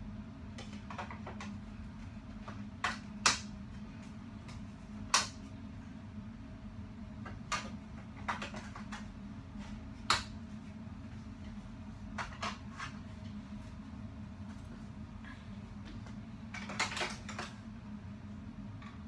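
Scattered clicks and knocks of objects being handled, a few of them sharp and loud, with a small cluster near the end, over a steady low hum.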